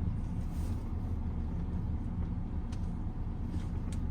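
Grand Vitara SUV's engine running at low speed as it reverses slowly down an off-road slope: a steady low rumble, with a few faint clicks in the second half.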